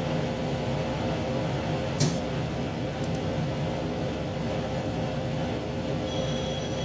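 Steady interior noise of a JR Shikoku 2700 series diesel railcar: low rumble with a constant humming tone. There is a sharp click about two seconds in and a faint high tone near the end.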